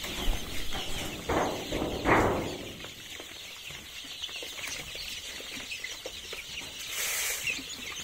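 A brood of 23-day-old local chicks cheeping and peeping all together while pecking at feed. Two louder rustling swishes come about a second and two seconds in.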